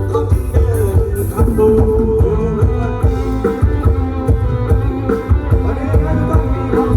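Band music: guitar over bass and drums with a steady beat.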